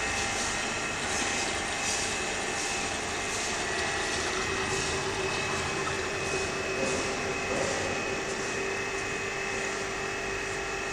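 Steady mechanical drone of a drum filling machine running as it fills a 209-litre oil drum through its filling lance, with two steady high whines throughout and a lower hum joining about three seconds in.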